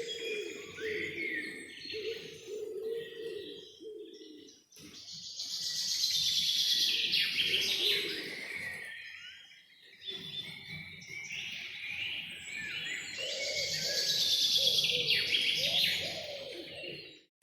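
Several songbirds singing together: a dense chorus of high chirps and trills that swells louder twice. A softer, lower wavering call runs underneath.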